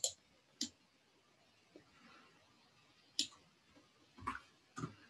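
Computer mouse and keyboard clicks: about five short, sharp clicks, spaced irregularly.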